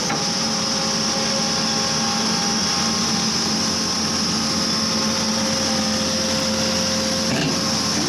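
Vermeer D80x100 horizontal directional drill rig running steadily: a constant diesel-hydraulic drone with several steady tones and a high hiss over it.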